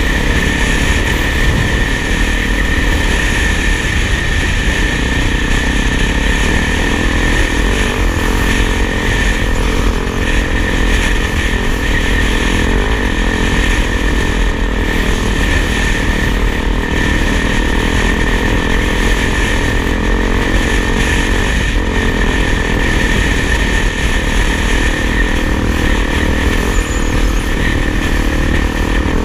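Single-cylinder four-stroke dual-sport motorcycle engine running at a steady cruising speed, with wind rushing over the bike-mounted camera's microphone.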